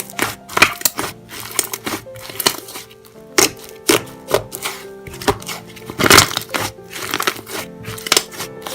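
Slime being pressed and worked by hand, with irregular crunchy crackles and pops, over background music.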